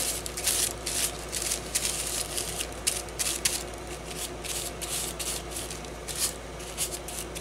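Flat paintbrush dragging acrylic paint across deli paper in short repeated strokes, a few a second, thinning out after about halfway.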